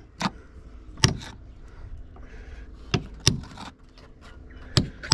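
About six sharp hammer knocks at irregular intervals, the hammer striking a hand tool being driven into the boat's hull.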